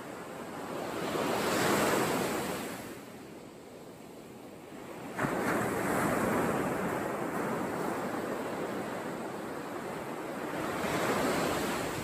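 Sea surf breaking on a sandy beach: a continuous wash of waves that swells about two seconds in and again near the end, with a sudden rise about five seconds in.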